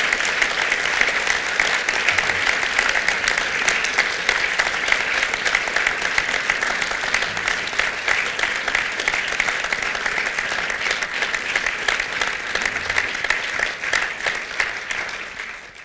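An audience applauding, many hands clapping in a steady dense patter that thins out slightly near the end.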